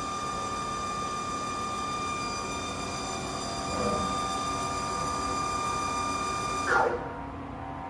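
Haas TL-1 CNC lathe spindle running at about 1000 rpm, a steady whine made of several high tones. Near the end there is a short loud rattle, after which the highest part of the whine drops away.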